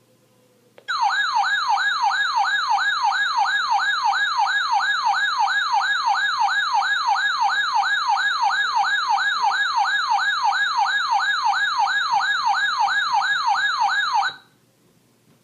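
Weather alert radio's warbling alarm, a tone sweeping up and down about three times a second, sounding for a received severe thunderstorm warning. It starts about a second in and cuts off suddenly near the end.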